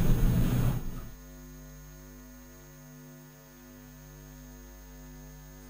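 A loud rushing noise cuts off abruptly about a second in, leaving a steady electrical mains hum on the audio feed.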